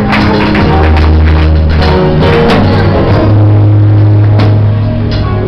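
Loud background music with sustained bass notes and a steady drum beat.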